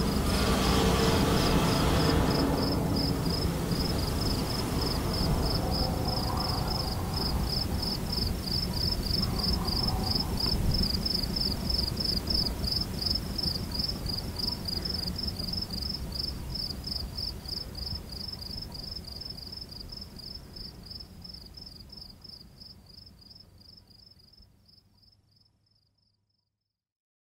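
Insects chirping in a rapid, even, high-pitched pulse over a low rumble and a faint steady hum. The whole sound gradually fades out near the end.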